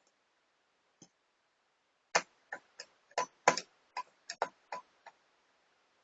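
A run of about ten sharp, irregular clicks and taps, roughly three a second, from hard plastic being handled: the netbook's case and parts being worked on.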